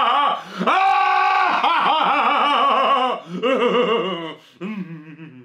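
A man's loud, exaggerated laughter: rapid 'ha-ha-ha' pulses with a long held cry about a second in, then tapering off and falling in pitch near the end.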